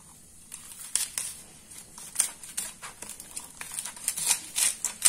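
Raw cauliflower being cut with a knife and broken apart by hand: an irregular run of sharp crackles and snaps from the stalks, leaves and florets, starting about half a second in.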